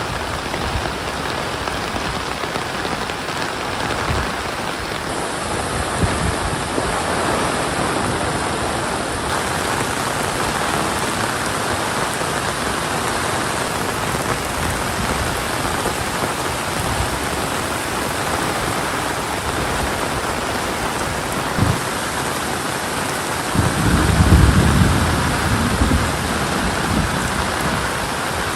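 Steady rain pouring down. A low rumble swells up near the end and fades over a couple of seconds.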